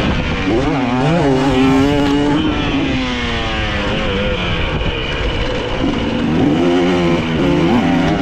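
Dirt bike engine being ridden, its pitch climbing and dropping again and again with throttle and gear changes, with a long falling sweep about three seconds in.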